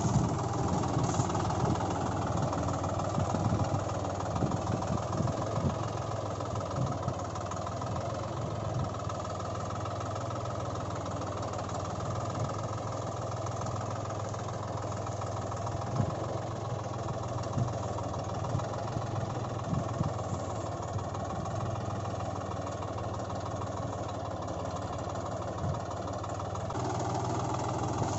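A tractor engine idling steadily, with a few brief louder clicks over it.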